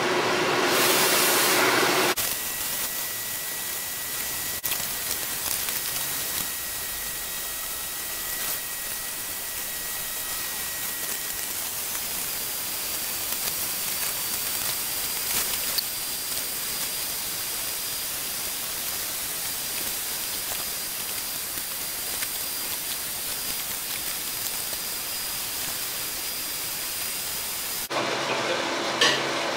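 Steady hiss of the acetylene torch flame and forge fire heating a cutlass blade to hardening heat. A humming, fan-like noise is heard for the first two seconds and returns near the end.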